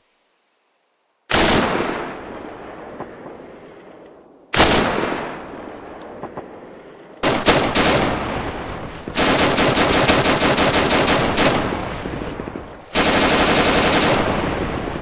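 Gunfire: two single shots, each with a long echoing decay, then a short burst and sustained rapid automatic fire.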